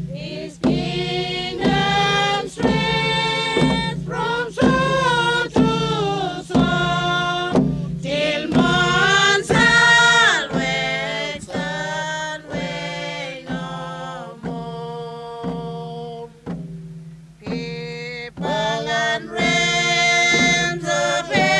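Group of voices singing a hymn unaccompanied, in harmony, with held notes that often slide in pitch at their ends. There is a brief lull about three-quarters of the way through before the singing picks up again.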